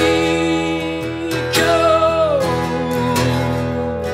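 A man sings long held notes while strumming an acoustic guitar, in a live solo performance. About halfway through, one sung note slides down in pitch.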